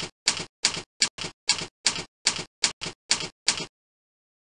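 Typing sound effect: an even run of about ten key clacks, each a sharp hit with a short rattle, roughly two and a half a second. It stops abruptly near the end.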